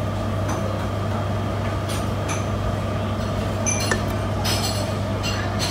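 Canned beer poured into a stainless steel cup, with a few light clinks of the can and the metal cup over a steady low hum.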